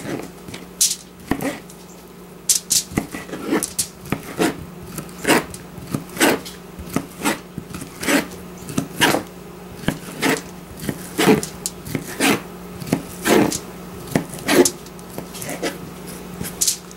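Kitchen knife chopping smoked sausage into bite-sized pieces, the blade knocking on a plastic cutting board in short, sharp strokes about one to two a second.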